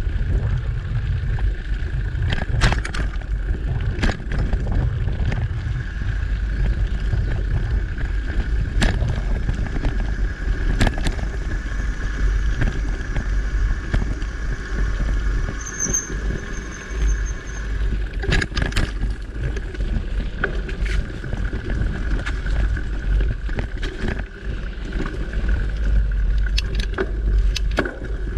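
Mountain bike rolling over a dirt singletrack, heard from a camera mounted on the rider or bike: a steady low rumble of wind and trail vibration, with sharp rattles and knocks as the bike goes over roots and bumps. There is a brief high squeak about halfway through.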